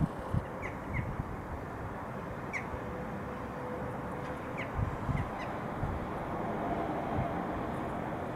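Half a dozen short, sharp bird calls scattered over a steady hum of city background noise, with a few low thumps on the microphone.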